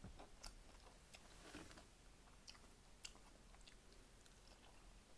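Faint, close-up chewing of a mouthful of cheeseburger and curly fries, with soft wet mouth clicks scattered through it.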